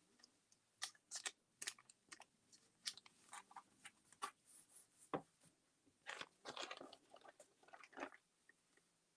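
Glue stick rubbed over an art journal's paper page and paper being handled: faint, scattered scratchy rustles and small ticks, with a longer rustle about six seconds in.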